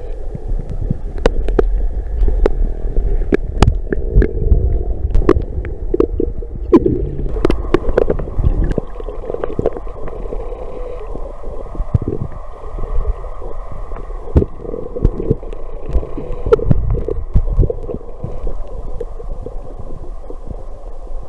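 Muffled underwater rumble picked up by a camera in a waterproof housing, with many short, sharp clicks and knocks scattered through it.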